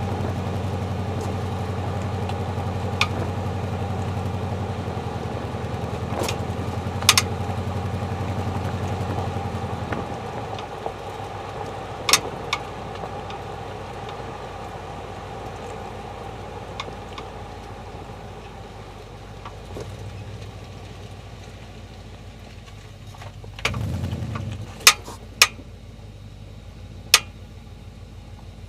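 Jeep Grand Cherokee WJ running with a steady low hum that eases off about ten seconds in. A handful of sharp clicks and knocks are scattered through, the loudest ones near the end just after a brief rumble.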